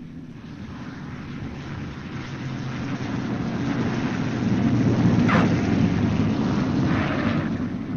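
Boeing B-29 Superfortress's four Wright R-3350 radial engines running as the bomber comes in to land, the rumble growing steadily louder and peaking about five seconds in.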